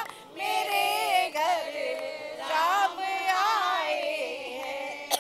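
A group of women singing a Hindi devotional song (bhajan) together without instruments, in long drawn-out notes.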